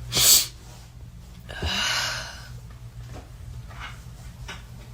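A person's sharp breath in, then a longer breathy exhale about a second and a half later, over a low steady hum.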